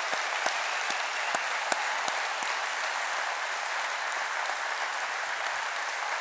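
Audience applauding steadily in a theatre hall, with a few louder single claps standing out close by, about two a second, in the first couple of seconds.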